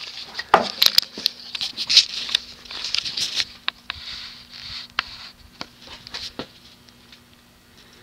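A faint steady hum from the ceiling fan's 188 mm stamped-steel Alaska spinner motor running on low speed. Over it comes an irregular patter of clicks and rustling that dies down about six seconds in.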